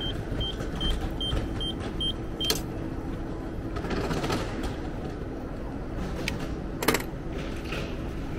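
Railway ticket vending machine beeping a short high tone about two and a half times a second, the signal that issued tickets are waiting in its slot. The beeping stops with a click about two and a half seconds in, and a single sharp clack follows near the end.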